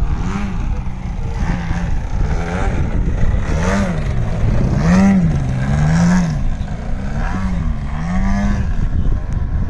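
Radio-controlled aerobatic model airplane's engine and propeller, revving up and down over and over as the throttle is worked to hold the plane in a nose-up prop hang. The pitch rises and falls about six times, over a steady low rumble.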